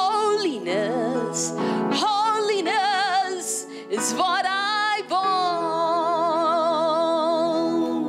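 A woman singing worship with wide vibrato over steady held instrumental chords, sliding between phrases and then holding one long note from about halfway through.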